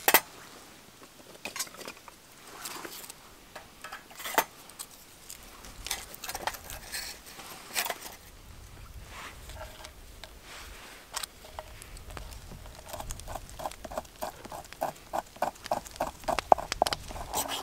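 Scattered clicks and knocks as kindling sticks are handled and laid on a steel pot stand in a metal fire bowl. Later, a knife blade scrapes birch bark on a wooden board in quick, even strokes, about four to five a second, making tinder.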